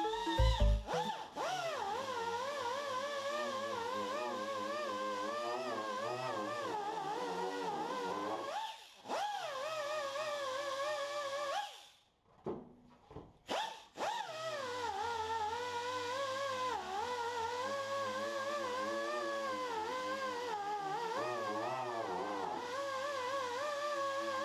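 Background lofi music: a sustained, wavering melody line. The beat drops out about a second in, and the music cuts out briefly about halfway.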